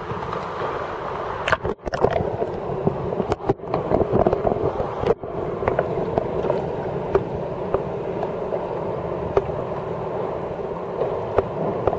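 Pool water sloshing and splashing as a sea kayak capsizes, picked up by a microphone at the waterline that dips in and out of the water. The sound briefly cuts out three times in the first half, then settles into steady lapping with small splashes.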